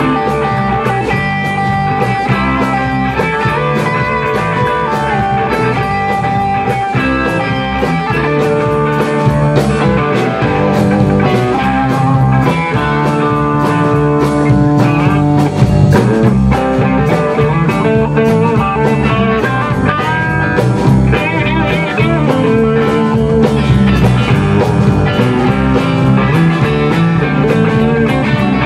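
Rock band playing live and loud without vocals: distorted electric guitars over a drum kit keeping a steady beat.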